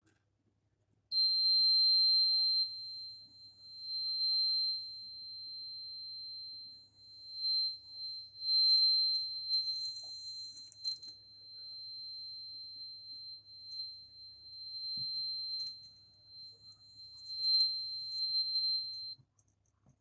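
Piezo buzzer of an Arduino fire alarm sounding one steady high-pitched tone, set off by a candle flame heating its 10K NTC thermistor. It starts about a second in and cuts off near the end, its loudness wavering.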